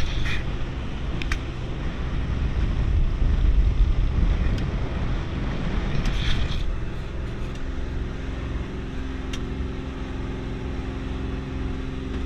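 Yanmar-engined speedboat running fast as it comes up onto the plane at about 2700 rpm: engine drone with water rush and a heavy low rumble, strongest about three to four seconds in, then settling into a steady even hum.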